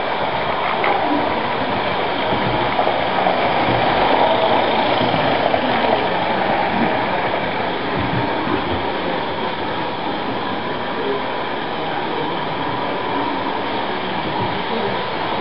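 Roundhouse Darjeeling live-steam garden-scale locomotive running round the layout track, a steady, even running noise with no clear beat, a little louder about three to six seconds in.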